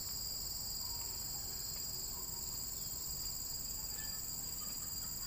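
Steady, shrill chorus of insects, several high pitches held without a break, over a low rumble.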